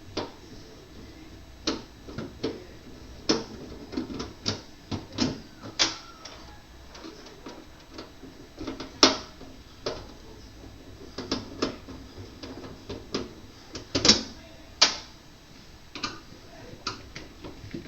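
Irregular clicks, taps and knocks as screws are backed out of a refrigerator freezer's back panel with a screwdriver, with a few louder knocks in the second half.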